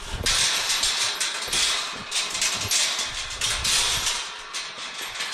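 A tubular metal livestock panel gate being handled and swung shut. There is a run of irregular rattles and scrapes, mixed with rustling.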